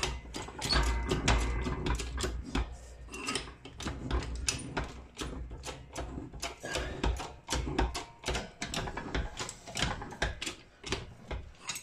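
Hand-pumped hydraulic bench press being worked to bring its ram down onto a keyway broach set in a gear's bore: a rapid, irregular run of metallic clicks and knocks with some low thuds.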